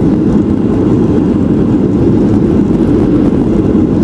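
Airliner cabin noise just after touchdown: a loud, steady roar from the engines and the wheels rolling on the runway during the landing rollout.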